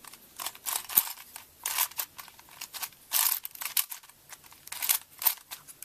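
Crazy 3x3x3 Plus Venus twisty puzzle being turned by hand through a sune: a run of short plastic clicks and clacks as the faces turn, at an uneven pace, the sharpest about a second in.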